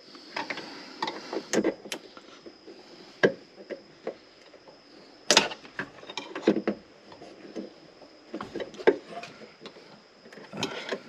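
Irregular plastic clicks, taps and knocks of trim clips being worked out of a car's interior trim panel, the loudest knock about five seconds in.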